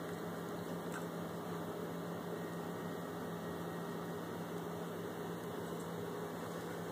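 A steady low electrical hum over an even background hiss, with no distinct sounds standing out.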